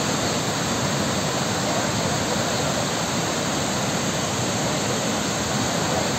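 Muddy floodwater pouring over a dam's overflowing spillway: a loud, steady, unbroken rush of water.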